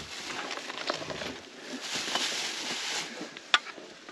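Rustling and rummaging through cloths and bags in a wicker basket, with small knocks and one sharp click about three and a half seconds in.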